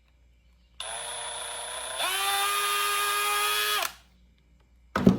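Electric drill spinning a wire-stripping bit to strip a wire: a steady motor whine starts about a second in, gets louder about two seconds in, and stops near four seconds. A short knock follows near the end.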